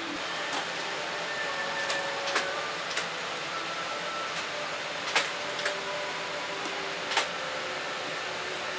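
Steady hiss of a Boeing 787-8's cabin air conditioning at the gate, with several sharp clicks and knocks scattered through it from passengers boarding.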